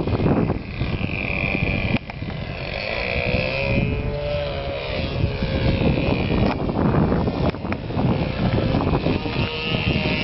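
OS 46 LA two-stroke glow engine of a Tribute 36 RC plane in flight, its whine rising and falling in pitch as the plane passes, over heavy wind buffeting the microphone.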